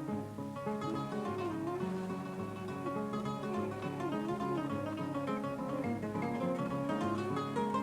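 Kora, the West African 21-string harp-lute, played in the Mandinka jali style: quick plucked runs of bright, ringing notes.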